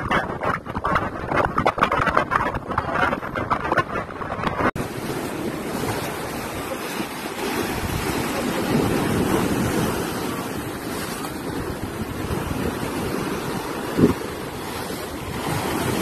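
Wind buffeting the microphone for the first few seconds, then after an abrupt cut about five seconds in, sea waves breaking and washing over a rocky shore in a steady rush that swells and eases. A single short knock about fourteen seconds in.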